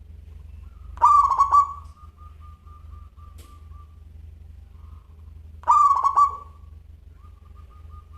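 Zebra dove (perkutut) cooing: two short calls about four and a half seconds apart, each followed by a faint, rapid trill held on one note.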